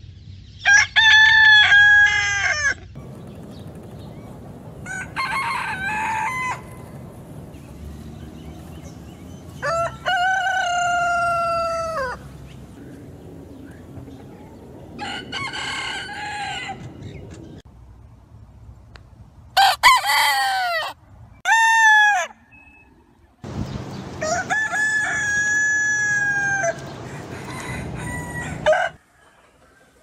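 Roosters crowing again and again, about seven drawn-out crows a few seconds apart, two of them short and close together past the middle. A low, steady background noise fills the gaps.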